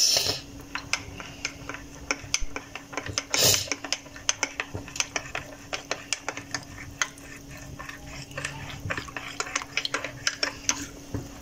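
Metal spoon stirring custard powder into milk in a glass mug, clinking and tapping against the glass in quick, irregular strokes.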